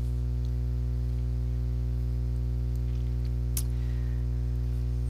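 Steady low hum made of several even tones, unchanging throughout, with a faint click about three and a half seconds in.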